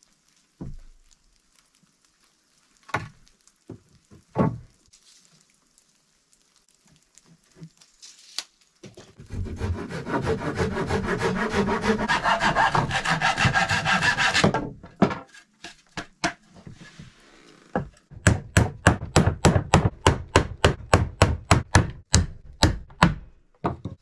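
Hand tools working wooden boards. A few scattered knocks come first, then about nine seconds in a steady rasping, like sawing, that lasts about five seconds, and near the end a run of about twenty quick, sharp strokes, about four a second.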